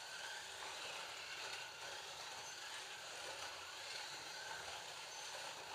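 Digital Scalextric slot cars running laps on a plastic track, heard as a faint, steady hiss of their small electric motors and wheels.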